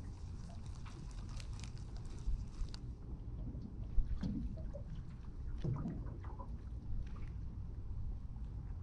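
Water and wind around a small boat, a steady low rumble, with scattered light clicks and taps. A single sharp knock comes about four seconds in.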